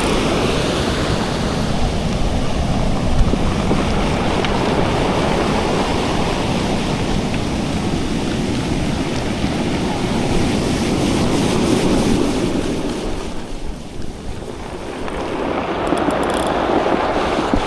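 Surf washing on a beach, with wind buffeting the microphone. The wash fades about three-quarters of the way through, then swells again as the next wave comes in.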